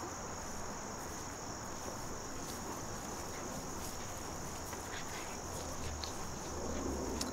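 Steady high-pitched trilling of insects in the background, with no break, over a faint hiss of outdoor air.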